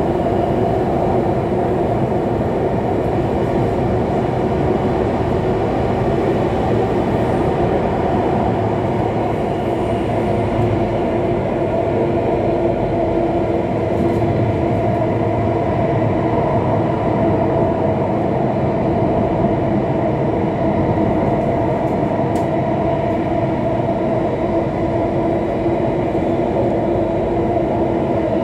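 Alstom Metropolis C830 metro train running through a tunnel, heard from on board: a steady rumble of wheels on rail with a continuous droning hum.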